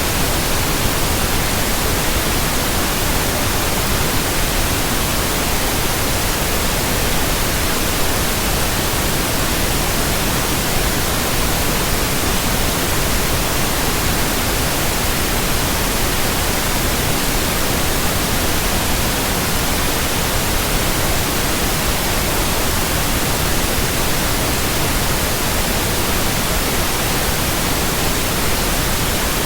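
Steady synthetic white noise: an even hiss across all pitches, constant in level and unchanging throughout.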